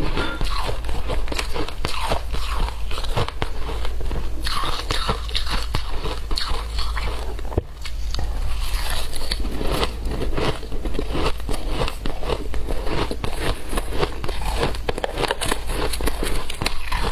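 Close-up crunching and chewing of shaved ice: a dense run of irregular crisp crunches with one brief pause a little before halfway.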